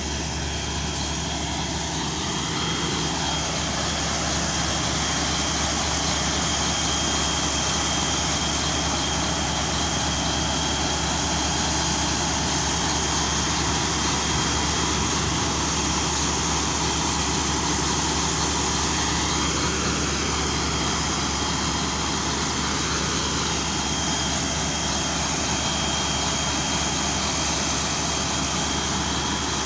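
Truck-mounted borehole drilling rig running steadily under load: a deep engine drone with a steady high hiss as compressed air blows muddy water up out of the hole around the drill pipe. It gets a little louder about two seconds in, then holds even.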